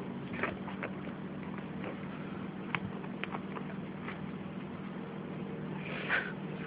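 Faint scratches and rustles of Miniature Pinscher puppies scrabbling and moving about on a fleece blanket, over a steady low hum. There is a short breathy snuffle about six seconds in.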